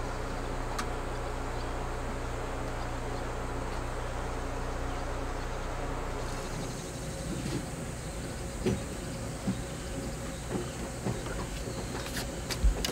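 A steady low motor-like hum made of several fixed tones. After about six seconds it eases off, and scattered light knocks and clicks follow, with the loudest knock near the end.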